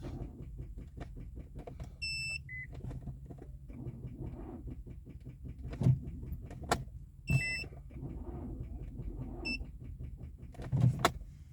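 A 2007 Infiniti G35 being started on a very weak battery: a steady low hum with fast ticking and a few sharp knocks. The dashboard chime gives a two-note beep about two seconds in and again about seven seconds in.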